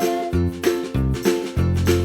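Upbeat background music with a steady beat, bass and plucked-string notes.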